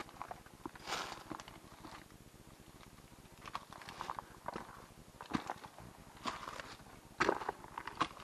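Footsteps of a hiker climbing steps with timber risers and dry fallen leaves on the treads, the leaves rustling and crackling underfoot in irregular clusters.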